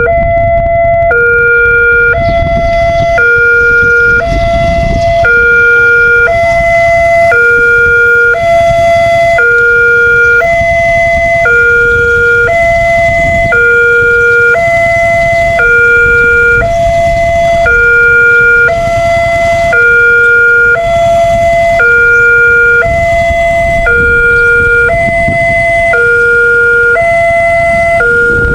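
Electronic warning siren at a railway level crossing, swapping between two tones about once a second, with a steady low rumble underneath.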